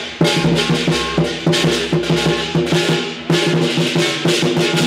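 Percussion-heavy music: drums and crashing cymbals beating a fast, steady rhythm over sustained low notes.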